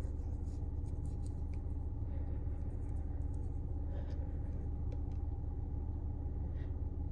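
Steady low hum inside a car, with faint light clicks and rustles over it.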